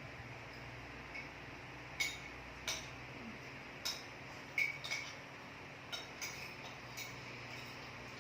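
Cutlery clinking lightly against a plate, about ten short, separate taps at uneven intervals, over a faint steady hum.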